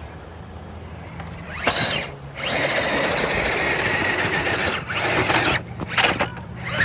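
Electric motor and geared drivetrain of a 1/10 scale RC rock crawler whirring under load, starting about two seconds in, running steadily, then in short stop-start bursts near the end.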